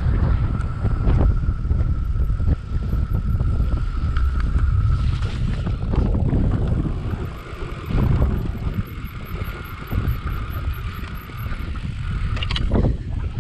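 Wind buffeting the microphone over the rumble and rattle of a mountain bike riding across rough, tussocky moorland grass, with frequent small knocks from bumps and a faint steady whine underneath.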